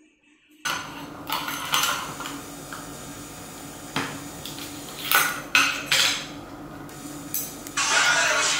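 Metal jar lid being knocked and scraped on a hard countertop by an African grey parrot: irregular clanks and clicks, then a continuous rattle near the end.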